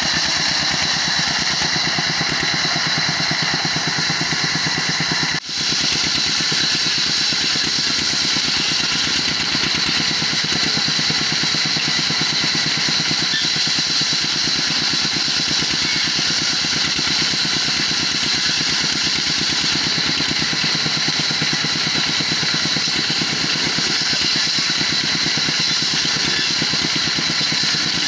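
Old stationary Petter-type diesel engine running steadily with a fast, even beat, belt-driving a band saw (aara) that is cutting through a log, with a high steady whine and hiss from the blade in the wood. The sound drops out briefly about five seconds in.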